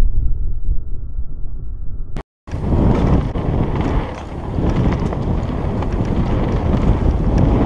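Wind buffeting the microphone of a camera riding on a mountain bike as it rolls fast down a dirt and gravel trail, with the rumble and rattle of the ride underneath. The sound drops out for a moment about two seconds in, then comes back brighter.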